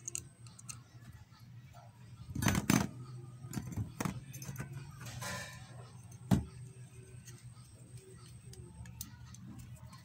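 Scattered metal clicks and knocks of a screwdriver and a wire terminal against a microwave oven's sheet-metal chassis as a ground screw is worked into a small hole; the loudest knocks come about two and a half seconds in, with single clicks near four and six seconds.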